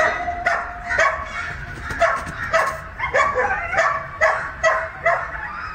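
Short, harsh animal calls repeated about twice a second, loud and close.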